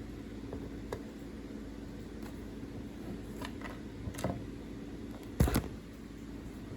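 A few light clicks and knocks, with the loudest pair about five and a half seconds in, over a steady low hum.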